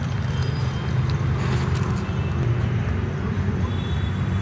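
Steady low rumble of road traffic, with a few light clicks about one and a half seconds in.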